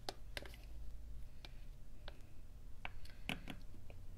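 Faint, irregular clicks and taps of a plastic spoon scraping and knocking against a plastic measuring cup as it works a thick cornstarch-and-dish-soap batter out into an ice cube tray.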